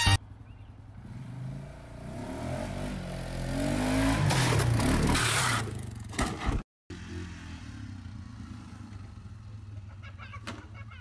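Quad bike (ATV) engine revving hard, its pitch climbing and growing louder as the machine rears up into a wheelie. It cuts off abruptly, and after a moment's silence a quieter, steady engine drone follows, with a few sharp knocks near the end.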